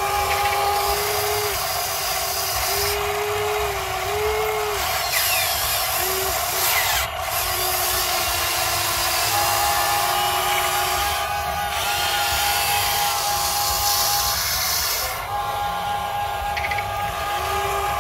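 Huina 580 RC excavator's electric motors and gear drives whining as the boom, arm and bucket work. The whine starts, stops and bends up and down in pitch every second or two as each movement begins and ends, with a higher steady tone coming and going.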